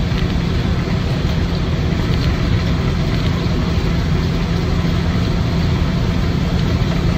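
1956 Land Rover Series 1 86-inch station wagon on the move, heard from inside the cab: its 2-litre four-cylinder petrol engine and drivetrain make a steady low drone at an even road speed.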